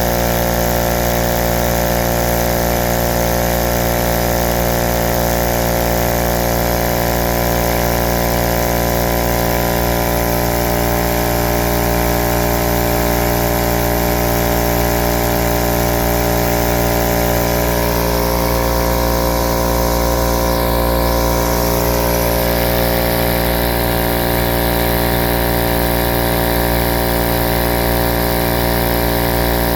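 Husky 33-gallon 1.7 HP electric air compressor running steadily, its motor and piston pump filling the tank.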